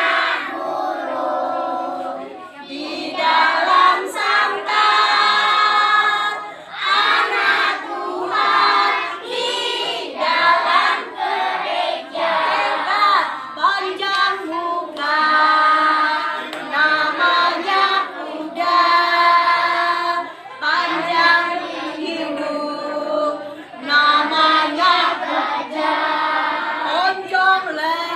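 A group of children singing a song together, phrase after phrase with short breaks between.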